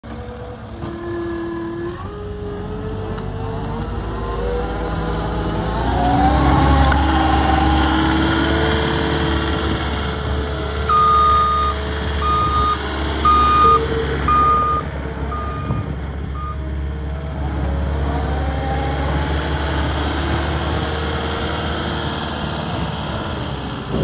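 Caterpillar 259D compact track loader's diesel engine running and revving up and down as it drives and turns. It is loudest a few seconds in, and its backup alarm beeps about six times in the middle.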